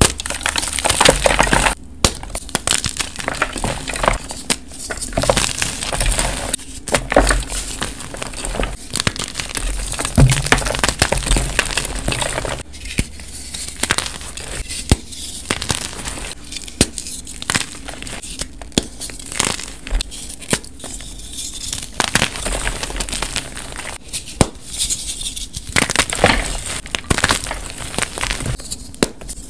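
Blocks of dyed gym chalk crushed and crumbled between the fingers: crisp crunching and crackling, coming in irregular spells with brief pauses between squeezes.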